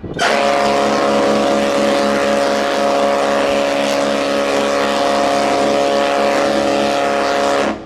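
Cruise ship's horn sounding one long, steady blast of about seven and a half seconds as a salute between ships, starting and stopping sharply.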